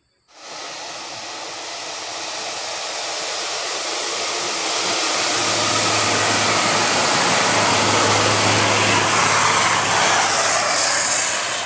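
Bus approaching on the road: a steady rush of engine and tyre noise that starts abruptly and grows louder over about eight seconds, with a low engine hum joining about halfway through.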